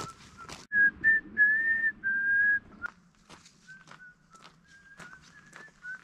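A person whistling a slow tune in held notes, loud for the first couple of seconds and then softer, over steady walking footsteps.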